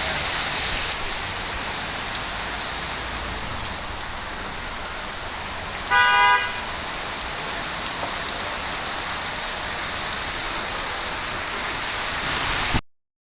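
Steady heavy rain falling, with one short vehicle horn toot about six seconds in. The sound cuts out abruptly near the end.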